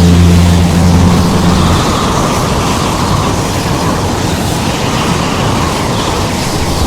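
Cartoon sound effects: a low, steady engine-like hum that stops about a second and a half in, then a loud, even rushing noise like strong wind.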